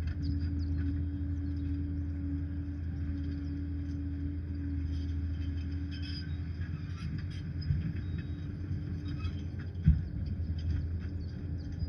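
Liebherr PR 746 crawler dozer's diesel engine running steadily, with light clinks and a sharp knock near the end.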